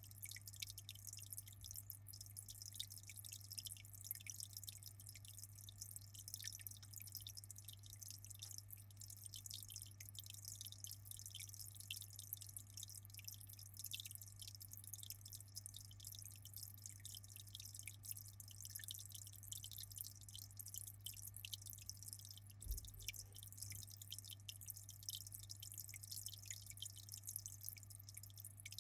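Faint aquarium water trickling and dripping, a steady patter of small drips and splashes, over a steady low hum.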